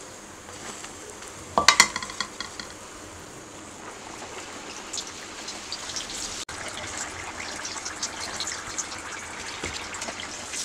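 Pastry-wrapped vegetable patties deep-frying in hot oil: a crackling, bubbling sizzle that builds up from about three seconds in. Just before two seconds in there is a short, ringing metal clatter against the pan.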